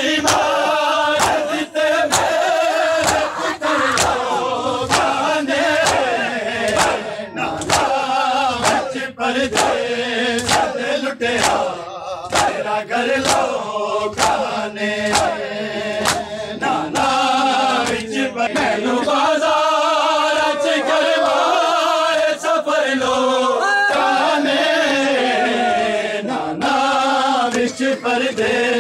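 A crowd of men chanting a noha lament together, with rhythmic slaps of hands on bare chests (matam) about once a second. The slaps thin out about two-thirds of the way through while the chanting goes on.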